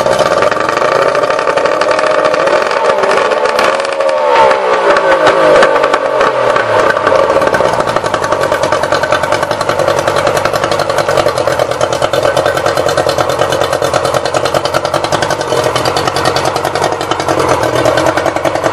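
2003 Yamaha 70TLR 70 hp two-stroke three-cylinder outboard running out of the water on a flushing hose. It revs up and back down a few seconds in, then runs steadily.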